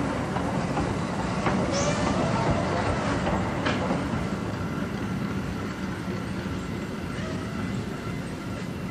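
Steam-era freight train moving through a station yard during shunting: a steady rumble of rolling wheels and rattling wagons, with a brief high squeal about two seconds in and a sharp click a little later.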